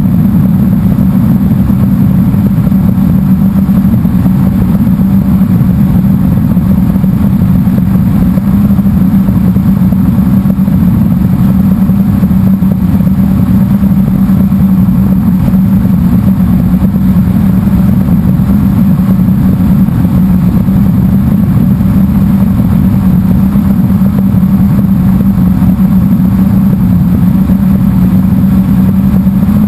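Blade 350 QX quadcopter's brushless motors and propellers whirring steadily in flight, picked up by the camera on board, with a constant hum and a rough, noisy rush.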